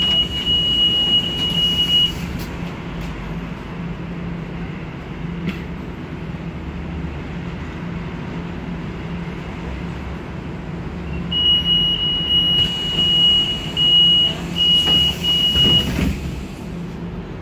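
Sofia trolleybus heard from inside its cabin while moving, with a steady low hum under the road noise. A single high-pitched tone sounds for the first two seconds, then again from about eleven seconds in for about five seconds, breaking up into short pieces near the end.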